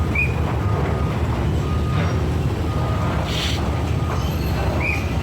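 Steady low mechanical rumble, with a short hiss about three seconds in and brief high chirps near the start and end.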